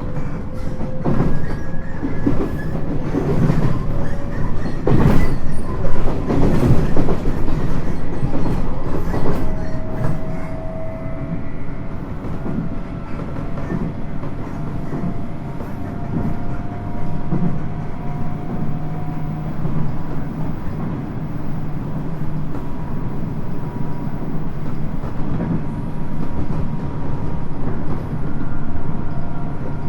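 Cabin interior of a 719 series electric train under way: a steady running rumble with the wheels clacking and knocking sharply over the rails in the first ten seconds or so, which the uploader puts down to track in poor condition. A faint whine rises slowly in pitch under the noise.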